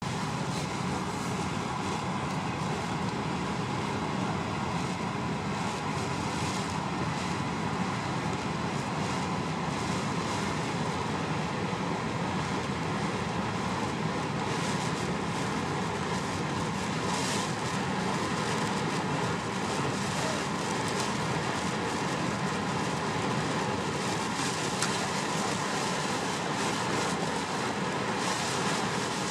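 Steady rushing noise of strong wind and Lake Superior surf, heard from inside a truck.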